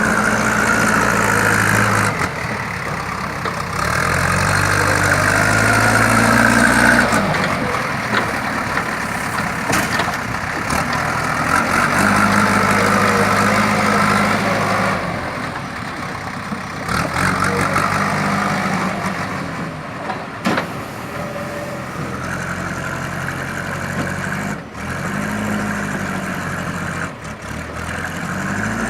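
JCB 3DX backhoe loader's four-cylinder diesel engine working under load, its note rising and falling repeatedly as it is revved up and eased back. A few sharp knocks are heard along the way.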